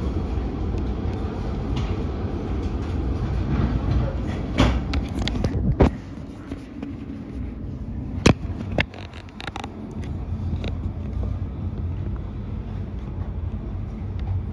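Oslo Metro MX3000 train standing at a platform with a steady low rumble from the car. Several sharp knocks and clicks come between about four and nine seconds in, after which the rumble is a little quieter.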